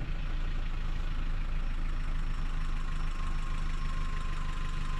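Safari vehicle's engine idling steadily.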